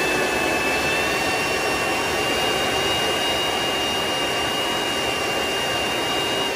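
AC Infinity 6-inch inline duct fan running wide open at its top speed setting (level 10): a steady, loud rush of air with a thin high whine that creeps slightly up in pitch as the fan settles at full speed.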